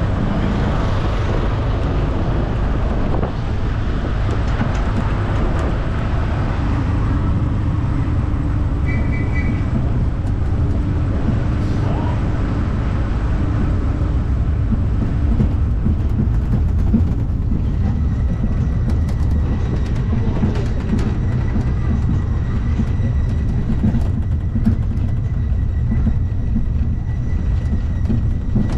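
Train running along the track, a steady low rumble with scattered clicks, with a thin steady high tone joining about two-thirds of the way in.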